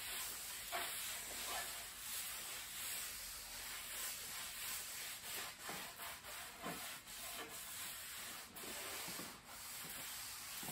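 A cloth rubbing back and forth over a waxed wooden tabletop in repeated strokes, buffing off the excess wax.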